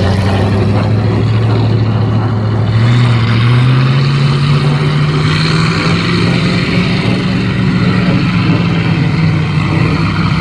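A motor vehicle engine running loudly under load, its pitch climbing over a few seconds and then holding steady, over a rough, noisy layer of sound.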